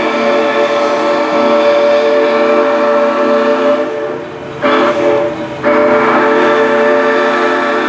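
Boiler-tube six-chime steam whistle on steam locomotive 643 blowing a loud chord: a long blast that breaks off about four seconds in, a short blast a moment later, then another long blast.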